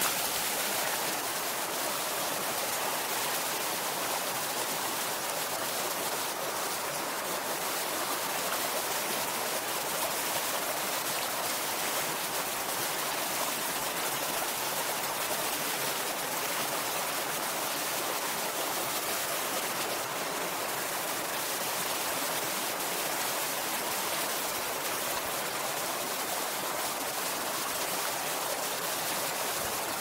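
Steady rushing of a mountain stream flowing over rocks and shallow riffles.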